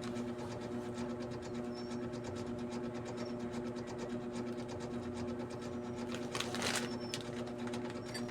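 A small electric motor running with a steady hum and fast, even ticking; a brief rattle about six and a half seconds in.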